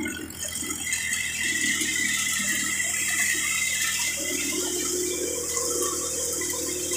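Hadamba threshing machine running off a tractor: a steady low hum under a constant rushing hiss as crop is fed through and threshed.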